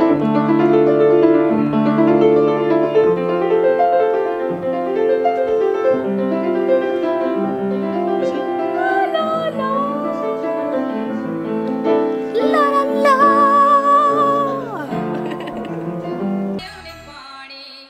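Upright piano played in steady chords, with a woman singing over it in held notes with vibrato, once about halfway and again a few seconds later. The music drops away abruptly near the end.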